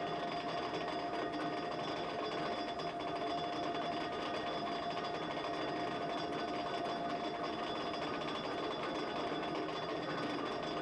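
Machinery running steadily: a rapid, even mechanical clatter with a steady whine over it.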